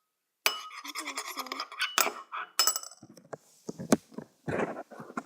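Spoon stirring slime in a bowl, clinking and scraping against the bowl in irregular strokes with several sharp clinks.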